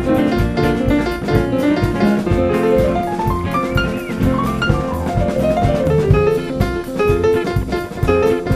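Jazz band playing an upbeat tune with a steady drum-kit beat under it; about three seconds in, a quick run of notes climbs and then falls back.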